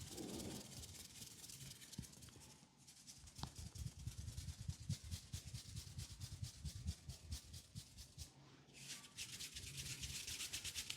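Hands rubbing a person's head and hair in a massage, a series of rhythmic rubbing strokes with soft low thuds in the middle. The strokes turn faster and brighter about nine seconds in.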